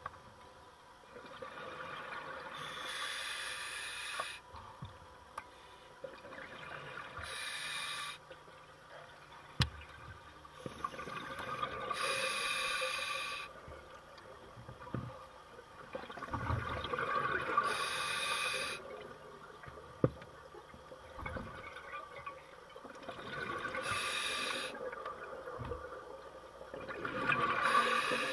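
Scuba diver breathing through a regulator underwater: about six breaths, each a hissing burst from the regulator followed by a wash of exhaled bubbles, roughly every four to five seconds. A few sharp clicks come in between.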